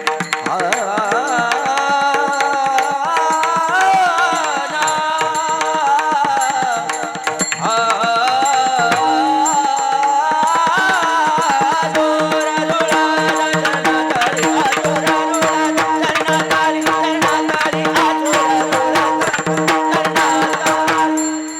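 Varkari kirtan music: a singer's voice wavering through a melody over a steady held note, with mridang drum strokes beneath. From about halfway the voice fades out and the mridang strokes come thicker and faster.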